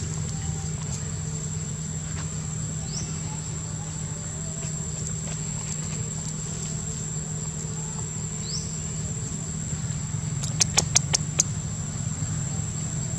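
Outdoor forest ambience: a steady high insect drone over a low steady hum, with short rising chirps every few seconds. A quick run of about six sharp clicks comes a little after ten seconds in.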